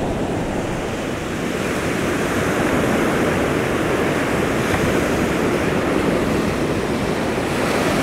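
Ocean surf breaking and washing up a sandy beach, a steady rushing, with some wind on the microphone.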